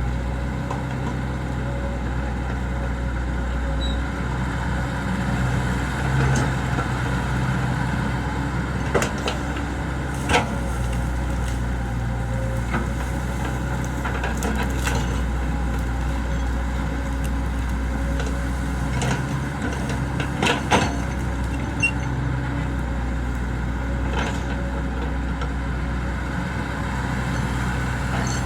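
Excavator's diesel engine running steadily, with a few sharp knocks about ten seconds in and a short cluster of them around twenty seconds in.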